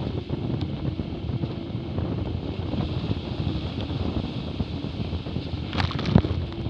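Wind buffeting the microphone over the rushing hiss of water spraying off the hull of a Hobie 20 catamaran under sail. A few sharp knocks or splashes come near the end.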